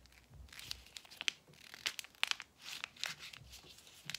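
Paper crinkling and crackling in the hands as a folded note is squeezed and creased, in quick, irregular crackles.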